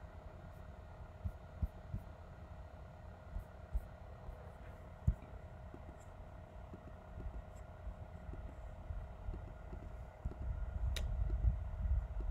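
Quiet room tone: a steady electrical hum under a low rumble that swells near the end, with a few soft clicks from a computer keyboard and mouse.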